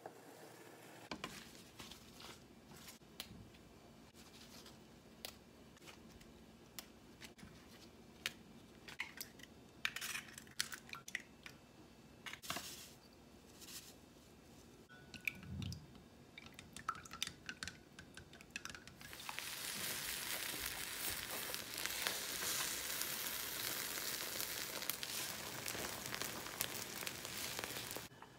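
Scattered light kitchen clicks and taps, then about two-thirds of the way through a steady sizzle as beaten egg fries in a nonstick frying pan, pressed flat with a spatula.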